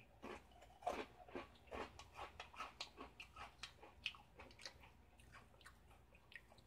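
Faint crunching of an Oreo cookie being chewed: irregular crunches, about three or four a second at first, thinning out after about three seconds.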